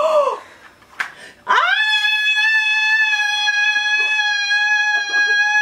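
A woman's long, high-pitched scream of excitement, held on one steady pitch for about six seconds, starting about a second and a half in; it greets the find of a rare gold Mini Brands piece. A brief gasp-like exclamation comes just before it.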